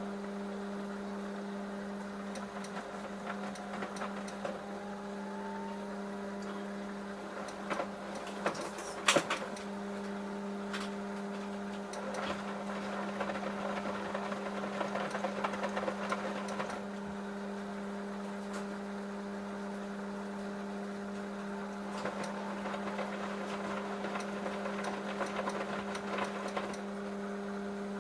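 Samsung EcoBubble washing machine running a wash cycle: a steady motor hum, with rougher churning in two spells as the drum turns the load, and a sharp click about nine seconds in.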